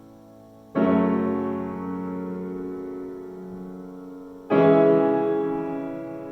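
Slow solo piano music: a full chord struck about a second in and left to ring and fade, then another chord near the end.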